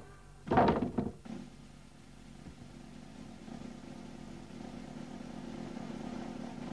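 Cartoon sound effects: a short noisy crash about half a second in, then a steady low rumble that slowly grows louder.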